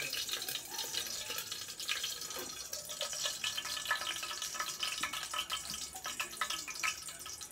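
Hot cooking oil crackling and sizzling in a rice cooker's inner pot, with onion frying in it: a steady hiss full of small, quick pops.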